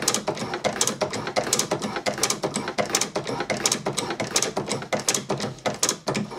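Drummond Mk2 hand shaper worked by its hand lever, the ram stroking rapidly back and forth with a stream of clicks and metallic scrapes from the tool and slideways. It stops suddenly near the end.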